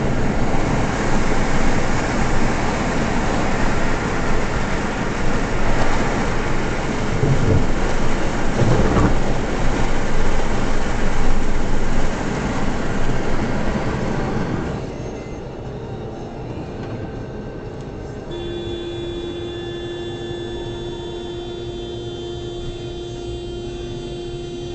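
Road and wind noise of a car at highway speed, heard from inside the cabin: a loud, steady rumble that drops markedly about fifteen seconds in as the car slows. From about eighteen seconds, steady held tones sound over the quieter road noise.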